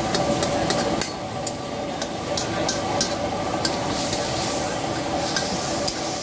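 Mutton sizzling as it fries in a karahi, stirred with a metal ladle that clicks against the pan several times, over a steady hum.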